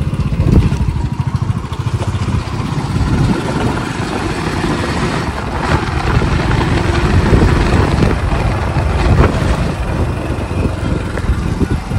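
Motorcycle running while being ridden along a lane, heard from the rider's seat, with a loud, uneven rumble throughout.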